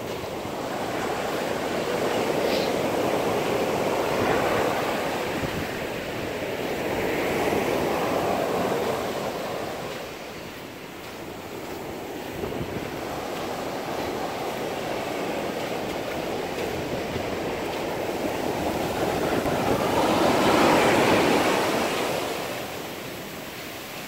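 Ocean surf breaking and washing up a sandy beach. The rush swells and fades several times and is loudest near the end.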